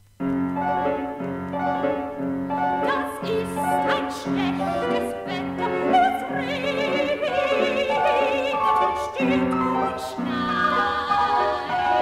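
A classical soprano sings an art song with piano accompaniment, played from a vinyl record. The piano comes in suddenly out of the silent gap between tracks with repeated chords, and the soprano's voice, with a wide vibrato, enters a few seconds later.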